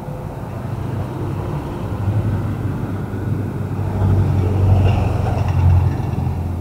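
Small vans driving past close by: low engine rumble that swells as they pass about four seconds in, then eases off as they move away.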